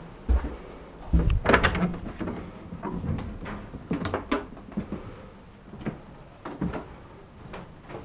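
An indoor door being opened and handled: a run of sharp latch clicks and knocks with a few dull thumps, loudest about a second and a half in, then scattered lighter clicks.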